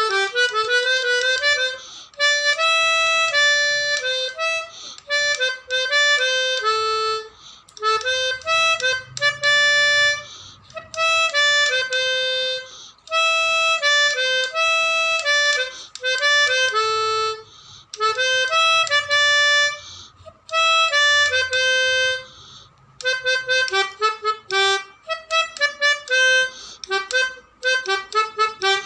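Telolet horn, a set of multi-tone air-horn trumpets, sounding a tune of several notes at once in short phrases with brief pauses. The notes come quicker and choppier toward the end.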